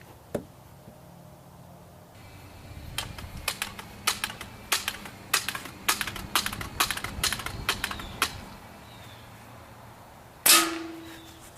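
A run of about a dozen light, irregular clicks and taps, then about ten and a half seconds in a single sharp crack of a BB/pellet air rifle firing, with a brief ringing tail.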